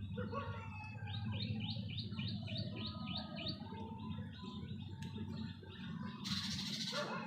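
A flock of birds chirping busily over one another, one call repeating about three times a second. Near the end comes a short, loud, rushing burst under a second long, over a steady low background rumble.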